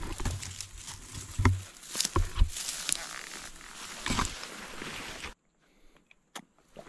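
Dry bracken fern rustling and crackling as hands and feet push through it, with scattered sharp snaps and knocks from stems and handling. It cuts off abruptly about five seconds in to near silence with a few faint clicks.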